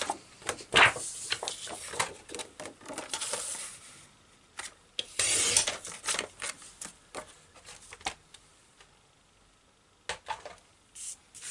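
White cardstock being handled and cut on a paper trimmer: paper rustling and small clicks, with one longer swish about five seconds in, most likely the blade sliding through the card. A few more clicks follow near the end.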